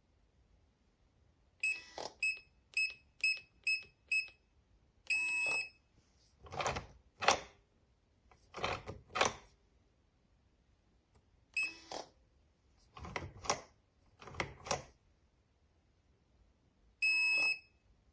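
IU-40 fingerprint door lock's keypad beeping: five short beeps about two a second as keys are pressed, then a longer confirmation beep about five seconds in. Several short mechanical clacks follow, mostly in pairs, from the lock's latch and handle, with one more beep near twelve seconds and a long beep near the end.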